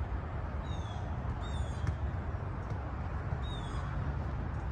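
Steady low rumble of wind on the microphone, with a bird giving short downward-sliding calls three times and one sharp thud about two seconds in, like a soccer ball being kicked.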